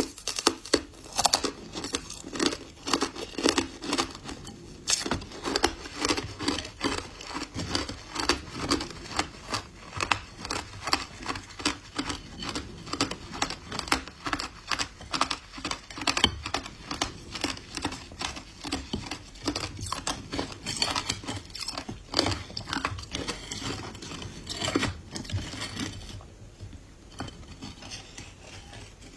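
Ice being bitten and chewed close to the microphone: a dense, rapid run of crisp cracks and crackles that thins out near the end.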